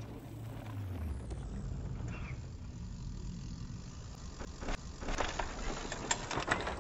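Mountain bike rolling past on a dry dirt trail, its tyres crunching over grit and gravel with a cluster of sharp clicks and rattles, loudest about five to six and a half seconds in as it goes by. A low rumble runs underneath.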